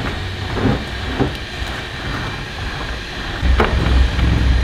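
Low rumble and a few faint knocks from a BMW E30 rolling out of an enclosed trailer onto its wooden ramp. The rumble grows louder about three and a half seconds in.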